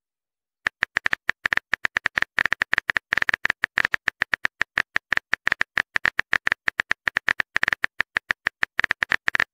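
Rapid phone keyboard typing clicks, several a second, each a short bright tick, as a message is typed out letter by letter. They start about a second in.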